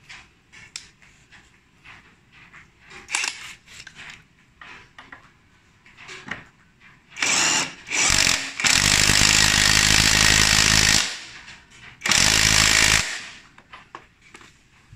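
Lomvum LOM-001 cordless brushless impact wrench with a 17 mm socket hammering on a motorcycle axle nut. It runs in loud bursts: two short ones about halfway through, then a long run of over two seconds and a last burst of about a second. Light clicks and knocks of the tool being handled come before the bursts.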